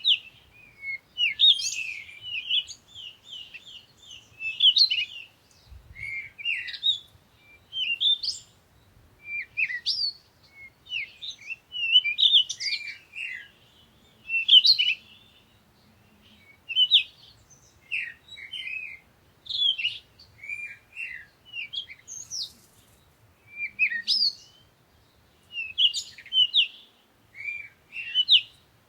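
Songbirds chirping in short, quick phrases of high notes, a new phrase every second or two without a break.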